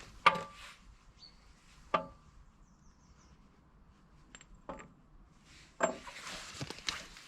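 A few separate sharp metallic clanks and clinks of steel parts and tools being handled. The loudest comes just after the start, with others about two, four and a half and six seconds in, some ringing briefly. Light rustling follows near the end.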